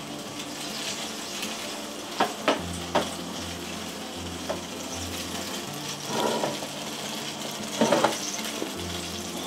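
Olive oil and tuna fat sizzling on a hot baking tray around a tuna collar just out of the oven. A few sharp clicks come around two to three seconds in, and a louder cluster comes near the end.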